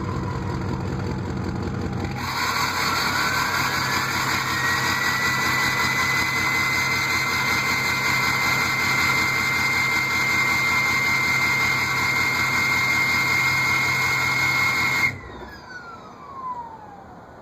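2003 Ford 6.0 Powerstroke V8 turbodiesel running through a 5-inch turbo-back exhaust. About two seconds in the engine is brought up and held, and the turbo whistle rises in pitch, then holds steady. Near the end the engine sound cuts off suddenly and the whistle falls away as the turbo spins down.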